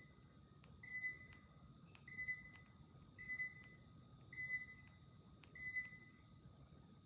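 Socket fan light beeping repeatedly: a short high beep about every second, five times. The owner puts the beeping down to there being two remotes for these lights while only one is in use.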